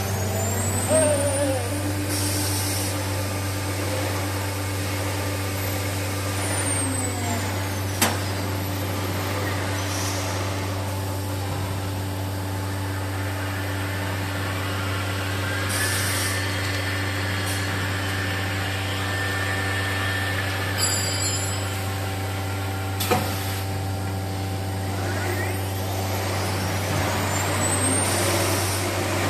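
CNC door-machining centre running: a steady low hum with a spindle whine that sweeps up and down in pitch several times, broken by short hisses of compressed air and two sharp clicks.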